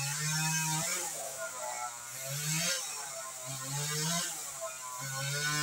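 NW258 two-stroke chainsaw running at a distance, its engine revving up and dropping back about four times as it cuts into a log.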